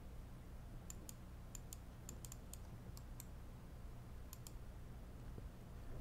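Faint clicks of a computer mouse, about a dozen, several in quick pairs, as the CAD view is turned round. A low steady hum runs underneath.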